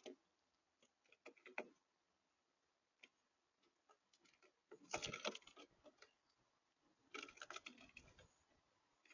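Faint tapping and clicking of small birds pecking at a feeder, coming in short clusters, the loudest about five seconds in.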